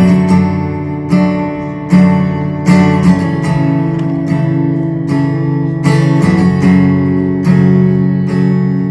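Acoustic guitar strumming chords in a slow, steady rhythm, with no voice yet.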